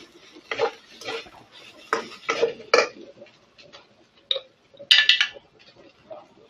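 Metal spatula scraping and knocking against a wok while stirring minced soybean filling, in irregular strokes, with a louder, sharper clatter about five seconds in.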